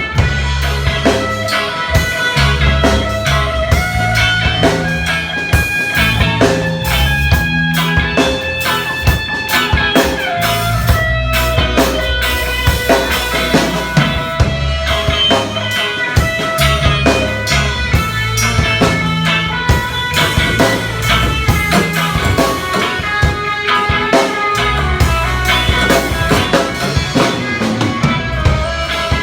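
Instrumental band music with electric guitar, bass and drum kit playing steadily together.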